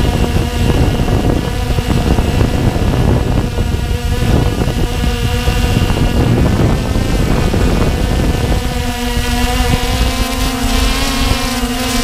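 Walkera Tali H500 hexacopter's motors and propellers whining steadily in flight, heard from its onboard camera over a heavy low rumble of air buffeting the microphone; the whine settles into a cleaner, steadier tone about nine seconds in.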